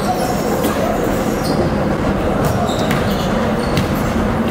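Indoor basketball play: a ball bouncing and sneakers squeaking on the court, with short sharp knocks and brief high squeaks over the steady noise of a busy gym hall.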